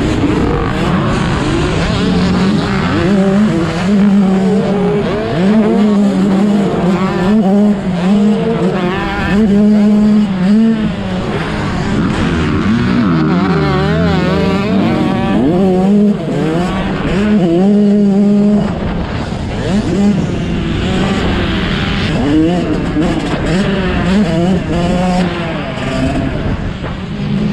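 Several motocross dirt bikes racing, their engines revving up and down through the gears, with overlapping rising and falling whines as bikes pass.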